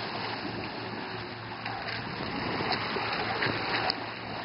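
Water splashing and sloshing as a bulldog swims hard after a radio-controlled boat, over a steady rushing hiss, with a couple of sharper splashes near the end.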